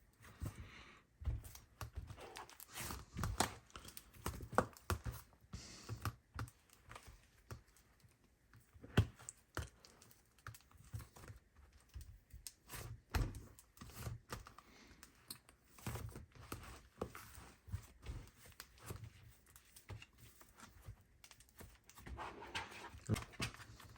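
Play-Doh slime being kneaded and stretched by hand, making irregular small sticky clicks, squishes and pops.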